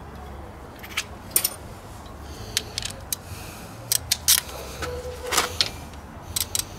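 Irregular metallic clinks and clicks, about a dozen, of wrenches and sockets being handled and a wrench being fitted to a front brake caliper's mounting bolt. One clink about five seconds in rings briefly.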